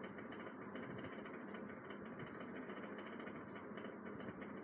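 Faint, steady background noise: room tone with a low hum and no distinct events.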